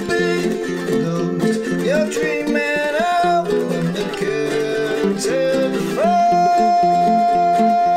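Two Noah ukuleles strummed and picked together under a man's singing voice. The voice slides up to a note about three seconds in, and from about six seconds in holds one long steady note over the ukuleles.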